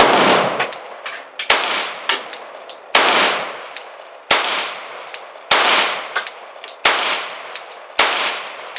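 Glock 19 9mm pistol fired at a slow, steady pace: seven loud shots about one and a half seconds apart, each trailing off in a long echo, with fainter sharp ticks between the shots.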